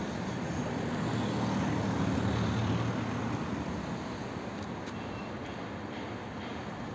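Steady rumble of passing road traffic, swelling about two to three seconds in and then easing off.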